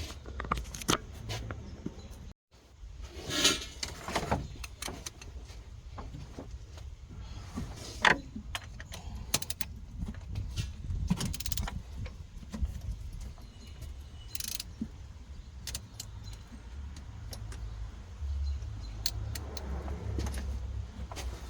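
Scattered metallic clicks and clinks of hand tools and engine parts being handled, with a few louder knocks, over a low rumble.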